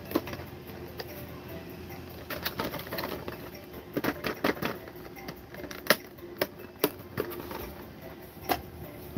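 Hard plastic collector case and bubble-wrap packing being handled: irregular clicks, taps and crinkling rustles, the busiest stretch in the middle.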